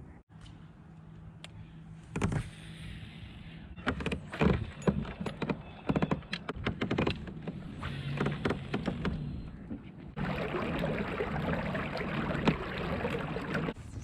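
Knocks, clatters and rattles of fishing gear being handled in a kayak over a faint low hum, followed by a steady rushing noise for the last few seconds.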